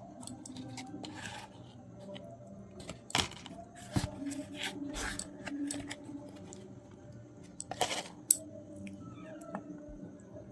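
Someone eating chicken biryani: chewing and mouth sounds with scattered clicks and rustles of the food being handled, and a few louder clicks about three, four and eight seconds in.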